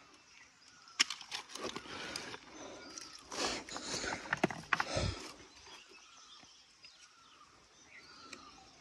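Stones knocking and scraping against each other as rocks are lifted and shifted by hand among gravel and dry leaves, with rustling; a run of sharp clicks and knocks that dies down after about five seconds.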